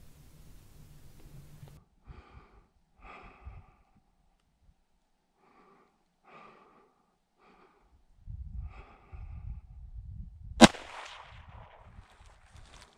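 A single rifle shot about three-quarters of the way in, sharp and by far the loudest sound, its echo trailing off for about a second. Low handling and wind rumble comes in a couple of seconds before the shot.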